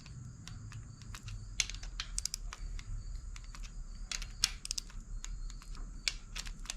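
Torque wrench clicking as bolts on the KA24DE cylinder head are checked at their torque setting. The sharp metallic clicks come singly or in quick groups of two or three, a second or so apart.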